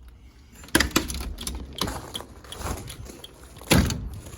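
A series of knocks and clicks from hard objects being handled, with two louder knocks, one about a second in and one near the end.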